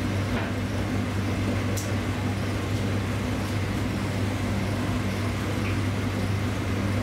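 Steady street traffic noise with a constant low hum underneath, and a faint high tick about two seconds in.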